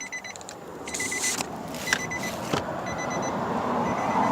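Electronic warning chime beeping in short rapid runs that start and stop several times, with a few sharp clicks. A rustling noise builds near the end.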